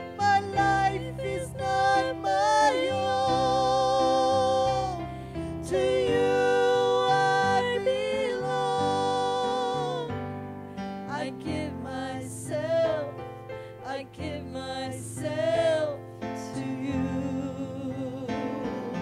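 Slow gospel worship music: a woman singing long, wavering held notes over keyboard chords.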